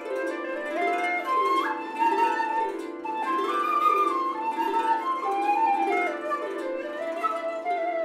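Chinese bamboo flute playing a slow melody with slides between notes over a Celtic harp plucking repeated rising-and-falling arpeggios.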